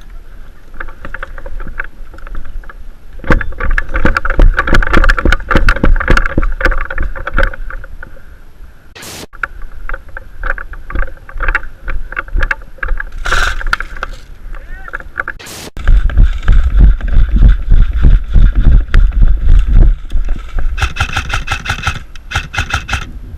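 Heavy movement and handling noise close to the microphone: dense, uneven thumps and rustling in two long spells. A fast, even run of sharp clicks comes near the end.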